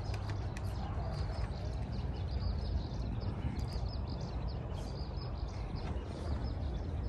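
Small birds chirping repeatedly in short, high calls over a low, steady rumble.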